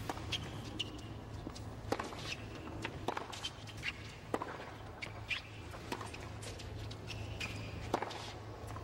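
Tennis rally on a hard court: sharp racket strikes on the ball every second or two, with short high shoe squeaks on the court between shots, over a low steady hum.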